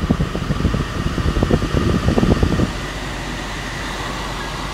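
Car air-conditioning blower rushing air steadily in the cabin. For the first two and a half seconds irregular low rumbles and knocks sit over it, then the steady rush goes on alone.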